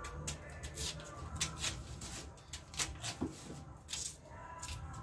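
Knife scraping and shaving the thick peel off a cassava root by hand, in short, irregular strokes about every half second.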